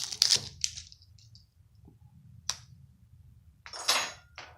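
Plastic packaging crinkling briefly, then a sharp click and a couple of short rustling clicks as a small plastic putty container is handled and worked open.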